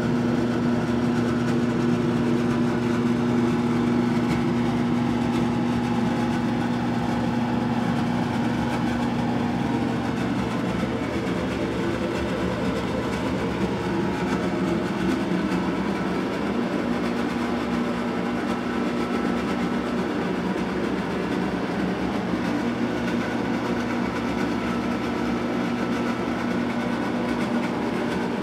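A steady mechanical hum with a few held tones over a constant rushing noise. The lowest-middle tone drops out for several seconds partway through, then returns.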